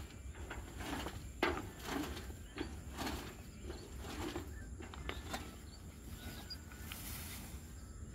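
Tall grass rustling and short scraping knocks as a worker wrestles a metal signpost loose from the ground. The bursts come irregularly for about five seconds, then it goes quieter.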